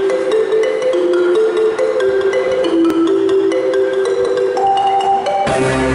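Ensemble of wooden marimbas playing a repeating, interlocking melody of short struck notes. Deeper bass notes join in near the end.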